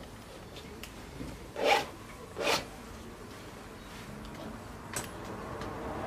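Two short rubbing scrapes of a paintbrush on a stretched canvas, a little under a second apart, then a single faint click.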